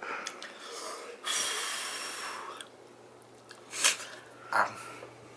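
A man breathing hard through his mouth against the burn of extra-hot chicken: a long hissing breath lasting over a second, then two short, sharp nasal breaths near the end.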